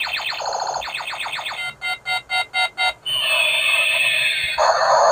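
Light-up toy flash gun playing its electronic sound effects through a small speaker: a fast rattling burst of tones, then five quick beeps about two seconds in, a falling whistle, and a buzzing tone near the end.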